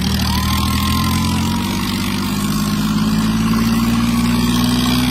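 Diesel tractor engines pulling hard under full load in a tractor tug-of-war. Their steady note climbs slowly in pitch, and a faint high whine sounds over the first couple of seconds.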